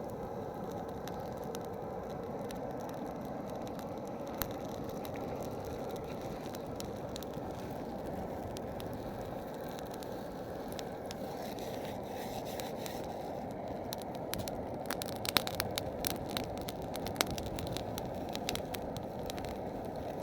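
Campfire burning: a steady low rush of flames with crackling and popping wood. The pops come thicker in the second half, with a few sharp, louder ones near the end.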